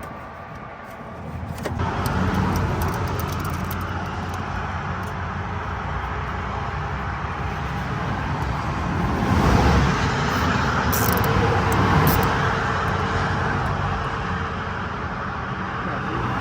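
A motor vehicle engine running steadily with a low hum, growing louder for a few seconds about nine to twelve seconds in.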